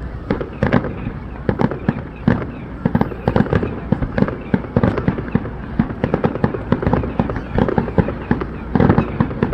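Aerial fireworks going off in a rapid barrage: many sharp, overlapping bangs each second, with a louder cluster near the end.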